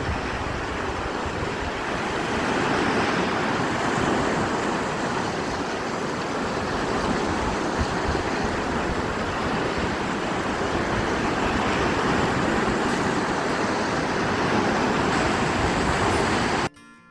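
Ocean surf washing onto the shore, a continuous loud roar of water that cuts off suddenly near the end.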